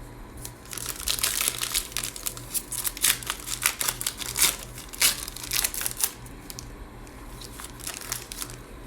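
A plastic foil trading-card pack wrapper being torn open and crinkled, a dense run of crackles over most of the first six seconds, then a fainter crinkle near the end.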